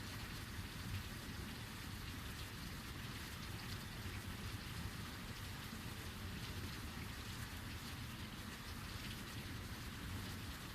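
Heavy rain falling steadily, a dense even hiss of drops with a low rumble underneath.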